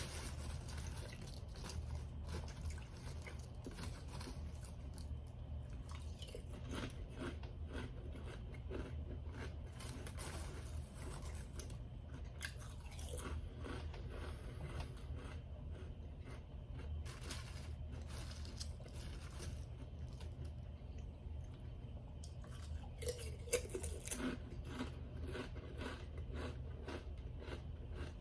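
A person chewing food close to the microphone, with many crisp crunches and smacks; the sharpest crunch comes a little over 23 seconds in. A steady low hum runs underneath.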